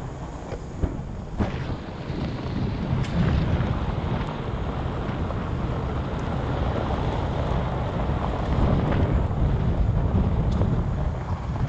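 Vehicle driving down a gravel road: a steady rumble of tyres on loose gravel, with wind buffeting the microphone and a few sharp ticks.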